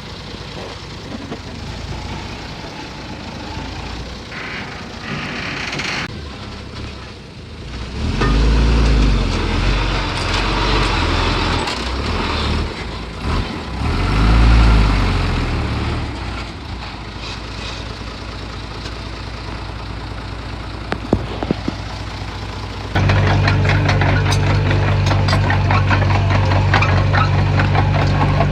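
Diesel engine of heavy earthmoving machinery running, revving up under load for several seconds in the middle. About 23 seconds in, it jumps suddenly to a louder, steady drone, with light clanks over it.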